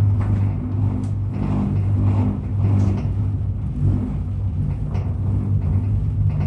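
Low, steady mechanical drone of a running vehicle, with a strong hum that pulses slightly.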